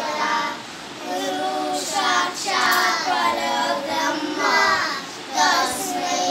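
A group of young boys singing a prayer together in unison, with held notes and two short breaks between lines, about a second in and near the end.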